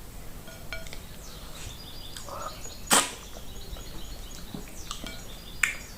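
Close-up eating sounds of fufu and okra soup eaten by hand: small wet mouth clicks and smacks, with one sharp, louder click about three seconds in and another near the end.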